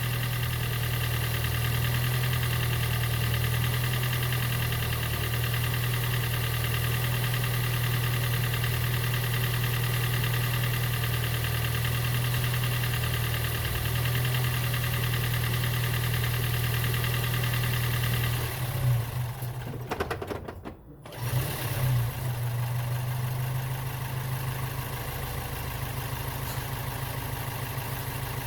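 Toyota Prius Gen 2's 1.5-litre four-cylinder petrol engine running steadily after a no-start. The mechanic has found its compression too low. About two-thirds of the way through the sound cuts out for about a second, then the engine sound resumes slightly quieter.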